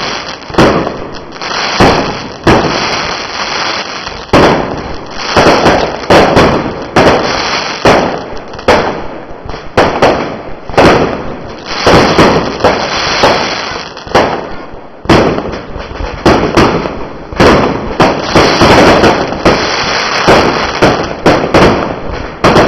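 Fireworks going off in a rapid barrage: many sharp bangs, often several a second, with crackling and hissing between them.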